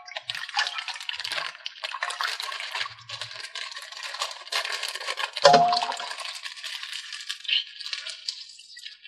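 Plastic surprise-bag packaging crinkling, with small plastic toy figures clicking and rattling as the bag is opened. One louder knock comes about five and a half seconds in.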